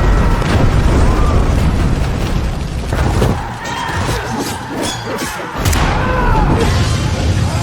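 Action soundtrack: music mixed with booms and crashing, shattering impacts.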